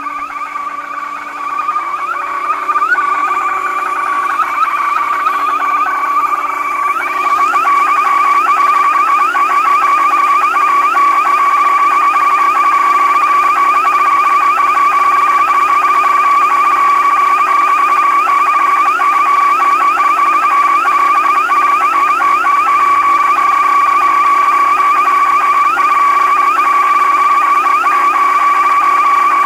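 Car alarm siren wired in as a car's horn, malfunctioning and sounding on its own without stopping. It holds a high, steady tone that grows louder, and from about seven seconds in it warbles rapidly.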